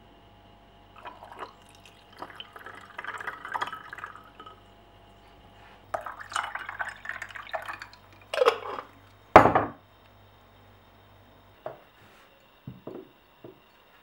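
Tea poured over ice cubes in a glass: two stretches of pouring and clinking, then two louder knocks of glass and ice, the second the loudest, and a few light clicks near the end.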